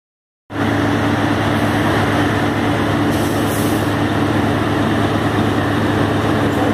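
GE C30 diesel locomotive working hard under heavy load on a grade while its failed lead SD70ACe unit gives no help, passing at close range. The sound is a loud, steady diesel engine note with a strong low hum, and it starts abruptly about half a second in.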